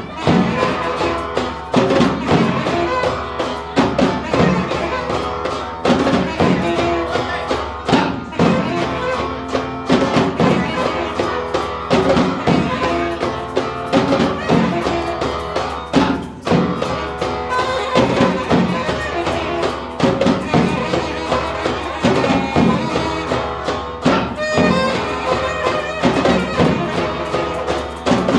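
Live band music: bass drum and djembes keep a steady beat under held saxophone notes and strummed guitar.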